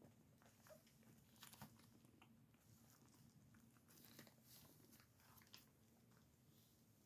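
Near silence, with faint, irregular crunching clicks a few times a second over a low hum.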